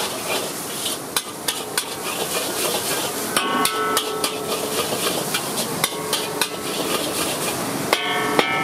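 Flat metal spatula scraping and knocking against a large wok (kadai) while stirring scrambled eggs, in irregular clanks several times a second, over a steady hiss of sizzling and the gas burner.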